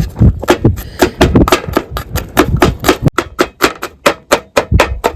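A knife chopping garlic finely in quick, even strokes, several a second.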